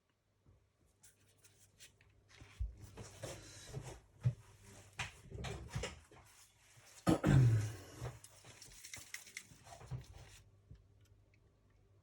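Small tools and metal engine parts being handled and worked during a model nitro engine teardown: irregular clicks, taps and scraping. There is one louder, heavier knock or push about seven seconds in.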